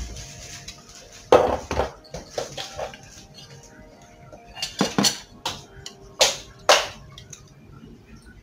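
Clanking of an electric pressure cooker's metal lid and inner pot: several sharp knocks and clinks as the lid is lifted off and set down and a utensil knocks against the pot, with faint metallic ringing between them. The loudest knock comes about a second and a half in.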